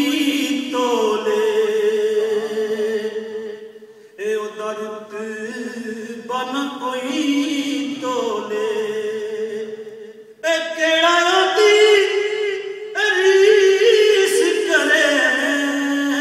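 A man chanting a naat unaccompanied into a microphone, in long, wavering held notes, the phrases broken by short pauses.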